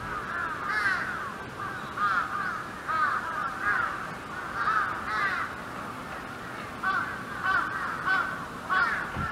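A group of animals calling: many short calls that rise and fall in pitch, overlapping one another, two or three a second throughout.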